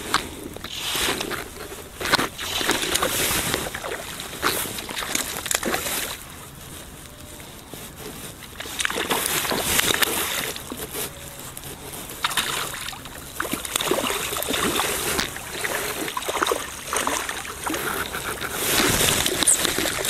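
A hooked trout thrashing at the lake surface, making irregular splashes that are loudest near the end as it comes to the net.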